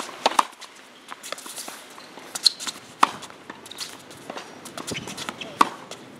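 Tennis balls struck by rackets and bouncing on a hard court: sharp pops, the loudest coming about every two and a half seconds, with fainter taps between.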